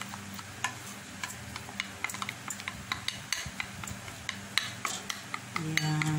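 A metal spoon stirring melting white chocolate in a ceramic bowl, clicking and scraping against the bowl's sides in irregular light taps, about two or three a second.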